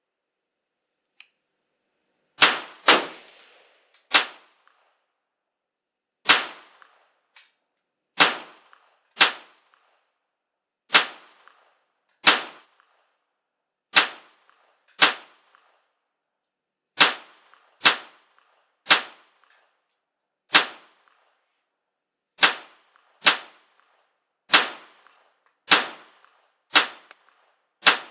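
Smith & Wesson M&P15-22P .22 LR semi-automatic pistol fired in slow, aimed single shots. About nineteen sharp cracks come one every second or two, some in quick pairs, each with a short fading tail.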